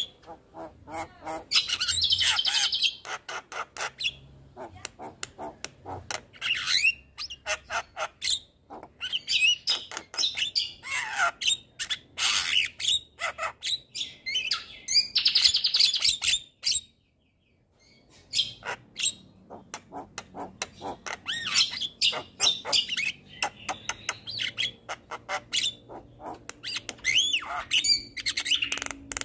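Javan myna singing a long, varied song: rapid clicking chatter mixed with harsh squawks and whistled gliding notes, broken by a second-long pause a little past halfway.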